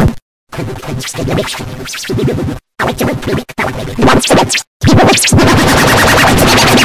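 Heavily distorted, chopped-up audio edit. Stuttering, scratch-like music is broken by several abrupt cuts to silence, and from about five seconds in it turns into a loud, steady, dense electronic noise.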